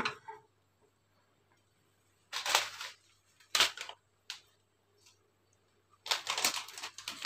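A few short bursts of clicking and rustling kitchen handling noise, separated by quiet stretches, over a faint steady low hum.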